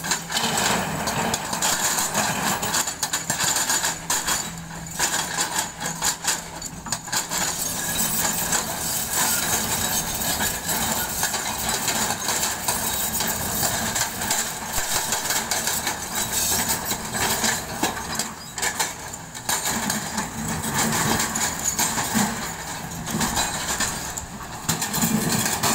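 Kobelco SK140 hydraulic excavators working broken rock: diesel engines running under load, with the clatter of stones against a steel bucket and the pounding of a hydraulic breaker on rock.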